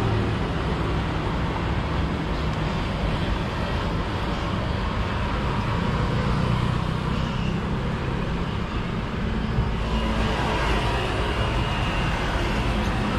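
Steady road traffic noise from vehicles running along the street, with a low engine hum that grows louder around the middle.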